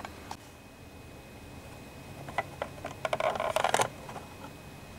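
Plastic front face of an Elektronika 01 clock being unclipped and pulled off its case: a few light clicks, then a burst of plastic clicking and scraping about three to four seconds in.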